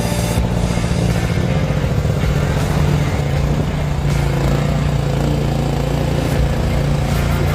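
Mini excavator's diesel engine running steadily under load, with a low, even hum.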